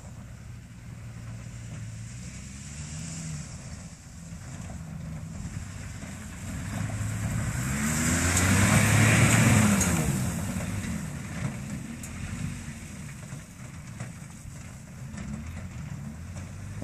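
Dodge Ram 1500 pickup with the Magnum V6 engine driving by: the engine and tyre noise build to a loud peak about halfway through, the engine note arching up and then falling as it passes, then fading back to a steady distant run.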